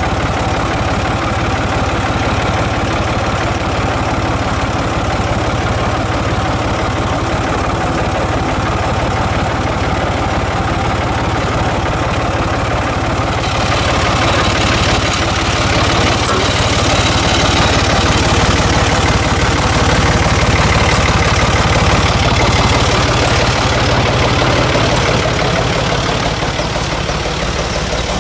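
Tractor engine idling steadily, heard from the driver's seat close to the engine. About halfway through, a hissier sound joins it and it gets a little louder.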